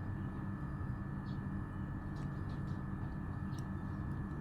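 Steady low machine hum with a thin, faint high whine, and a few faint ticks.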